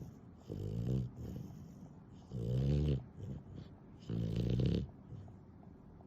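A sleeping dog snoring, three snores about two seconds apart, each a short pitched rasp on the breath.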